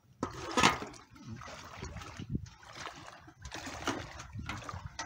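Shallow seawater splashing and sloshing in irregular strokes as someone wades through it, with the loudest splash about half a second in.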